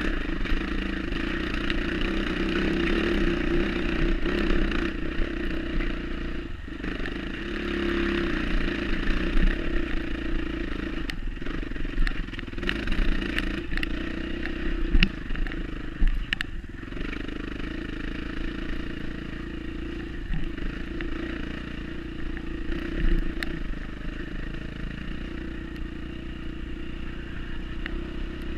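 Off-road dirt bike engine running on a trail, its throttle rising and falling, with scattered clatter and knocks from the bike riding over rough ground.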